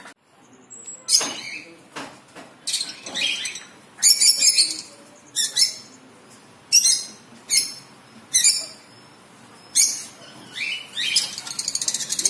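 Captive birds calling: a string of short, high-pitched chirps, one or two a second, ending in a fast rattling trill.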